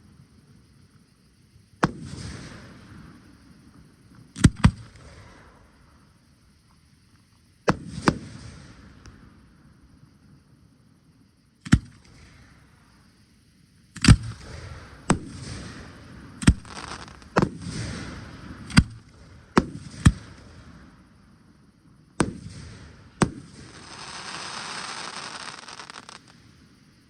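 Aerial fireworks shells bursting: sharp bangs, each followed by a rolling echo. They come a few seconds apart at first, then in a quicker run of about eight bangs over the middle stretch. A hiss of about two to three seconds follows the last bang.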